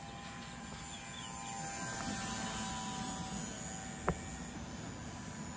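Electric motor and propeller of a 1S Li-Po micro RC ultralight plane in flight: a steady thin buzzing whine that grows a little louder partway through. A single sharp click about four seconds in.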